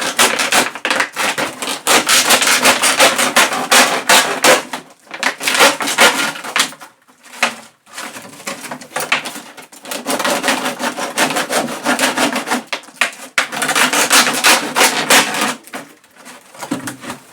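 Rapid rasping strokes as a 20-litre plastic water bottle is cut. They come in two long runs with a short break near the middle, and grow quieter near the end.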